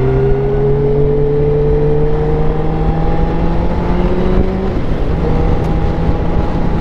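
Sport motorcycle engine running under steady throttle, its note slowly rising, then breaking off and coming back lower about five seconds in.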